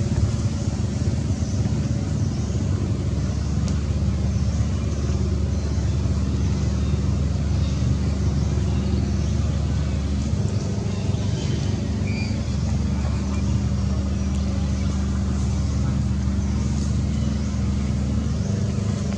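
Steady low rumble of engine or traffic noise, with faint high chirps over it.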